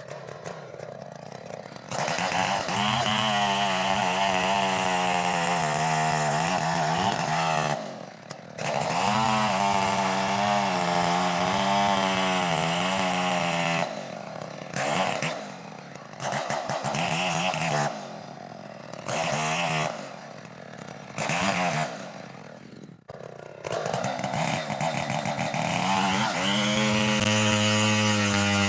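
Stihl chainsaw running at full throttle, its pitch wavering under load as it cuts timber, with a brief drop about a third of the way in. Then come several short bursts of throttle with dips toward idle between them, before it revs up again and holds steady near the end.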